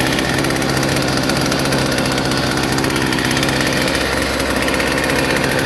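McCulloch MAC 438 two-stroke chainsaw, freshly rebuilt, idling steadily at an even pitch.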